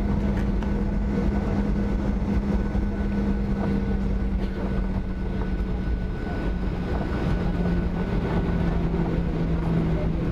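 Boeing 737-800's CFM56-7B jet engines running at low taxi power, heard from inside the cabin over the wing: a steady hum over a smooth rush of noise, its low tone dropping slightly about seven seconds in.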